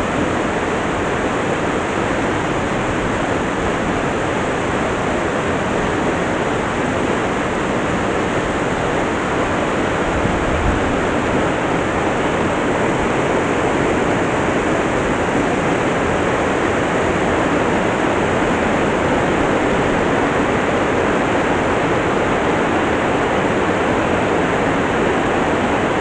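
Waterfall with a heavy flow of water, rushing in a loud, unbroken wash of noise.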